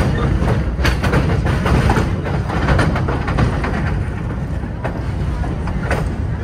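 New York subway train running on elevated track: a steady rumble of wheels on rail, with sharp clicks at uneven intervals as the wheels cross rail joints and switches.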